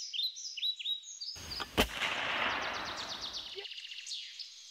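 Birds chirping with a quick, repeated downward-sweeping call. About a second and a half in, a rush of noise swells into a single sharp, shot-like crack, the loudest sound, then fades over about two seconds. A fast high trill of chirps follows.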